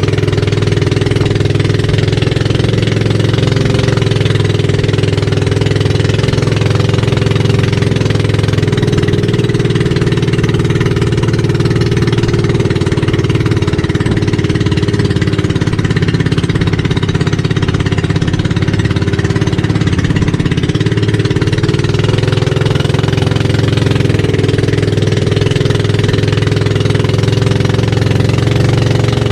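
Motorized outrigger boat's engine running steadily at cruising speed, with a rattly, hammering note, over the hiss of water rushing past the hull and outrigger.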